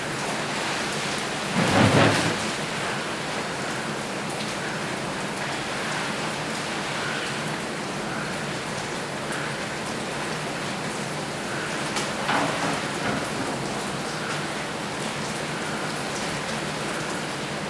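Steady hiss of shower water falling like rain, with two brief louder rushes, about two seconds in and about twelve seconds in.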